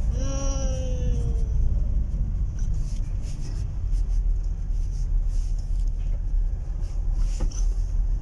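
Steady low rumble of a car's engine and tyres heard from inside the cabin while driving. About a quarter second in, a single pitched vocal call glides slowly down in pitch and fades within about a second.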